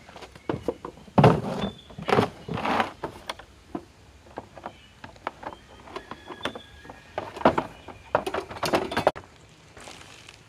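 A run of irregular knocks and thuds, with a few louder clattering bursts a little over a second in, around two to three seconds in and again near the end.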